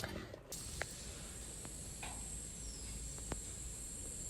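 A steady, high-pitched insect drone over a low rumble of wind or ambient noise. It starts suddenly about half a second in, with a few faint clicks.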